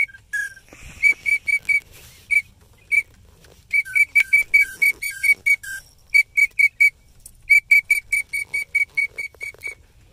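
Duck whistle call blown in runs of short, high peeps, about four to five a second, with brief pauses between runs and a few lower dropping notes in the first half. This is the kind of whistle blown to bring in pintails and teal.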